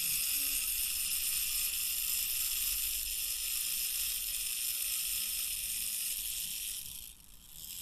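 Self-timer clockwork of a Ricoh Hi-Color 35S rangefinder camera running down as its lever returns: a steady high-pitched mechanical whirr that fades out about seven seconds in.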